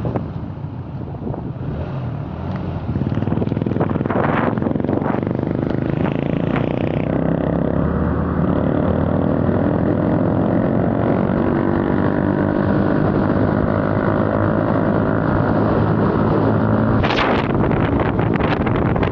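A vehicle engine running steadily while under way, getting louder about three seconds in, with wind buffeting the microphone.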